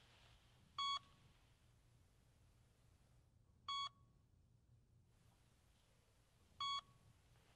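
Patient heart monitor beeping: three short, identical electronic beeps about three seconds apart, over a faint low hum.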